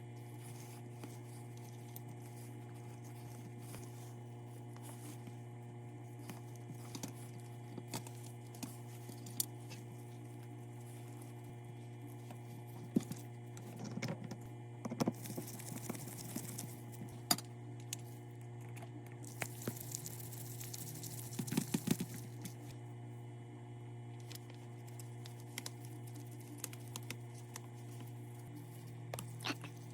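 Small parts being handled, with scattered clicks and taps over a steady electrical hum. Around the middle come two hissing bursts of a couple of seconds each.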